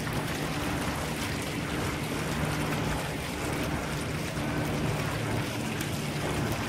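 Steady rushing outdoor noise with a low, steady hum underneath, unchanging throughout.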